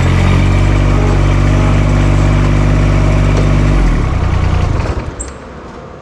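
Toro Z-Master zero-turn mower engine running steadily close by. About four seconds in the note drops and fades as the mower pulls away.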